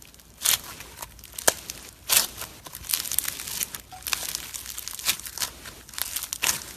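Slime being squeezed and worked by hand, giving irregular crackling, crinkling pops and short squelchy bursts.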